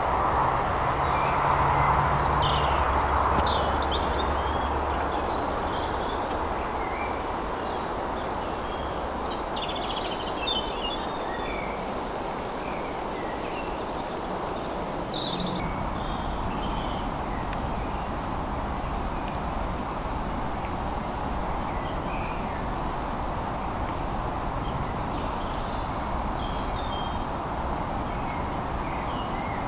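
Small birds chirping and singing, many short calls scattered throughout, over a steady background hiss.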